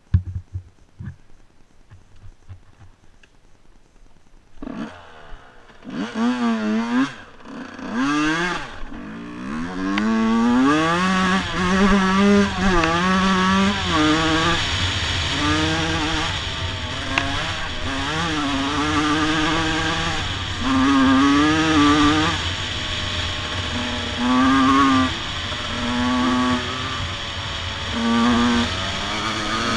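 Two-stroke dirt bike engine ridden on a trail: after a quiet few seconds with a knock at the start, it revs up about five seconds in, its pitch climbing and dropping through the gears, then runs hard with the revs rising and falling.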